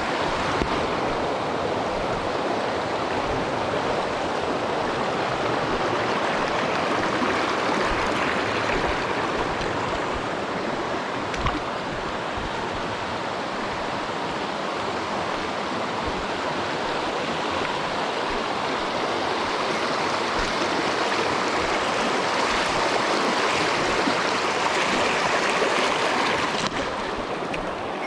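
Mountain stream water rushing steadily over rocks, a dense even wash of sound that eases slightly near the end.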